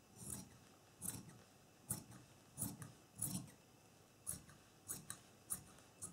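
Large dressmaking shears cutting through fabric in a series of separate snips, about nine of them, roughly one every two-thirds of a second.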